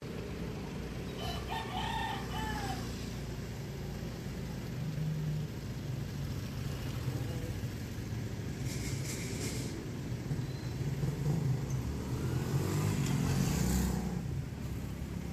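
Street traffic noise with a steady low engine hum. A rooster crows once about a second in, and a vehicle grows louder and passes near the end.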